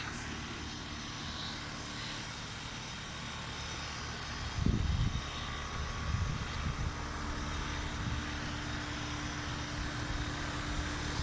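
Carrier heat pump's outdoor unit running in heating mode: a steady fan whoosh with a low hum from the compressor. A brief low rumble comes about four and a half seconds in.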